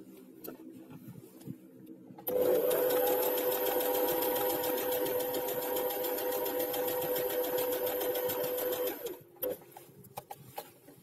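Domestic electric sewing machine stitching a seam through a waistband with stretched elastic. It starts about two seconds in, runs at a steady speed with a steady whine, and stops abruptly near nine seconds.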